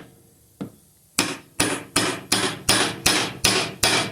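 Light hammer taps seating a part of an Indiel AVI 128 alternator back into place during reassembly after its bearing was greased: one faint tap, then a quick run of about eight sharp, even taps, roughly three a second.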